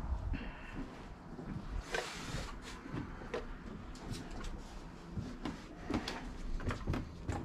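Scattered light knocks and clicks, with a short hiss about two seconds in.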